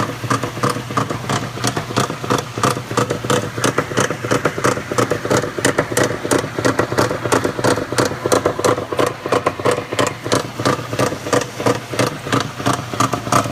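Maytag Centennial top-load washer agitating with a loud, fast clatter of knocks over a steady motor hum. The owner takes the noise for a bearing or similar fault.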